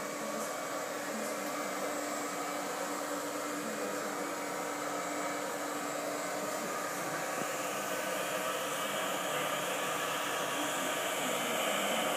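Handheld hair dryer running steadily, a constant rush of air over a motor hum. The airflow changes slightly about two-thirds of the way through and gets a little louder near the end.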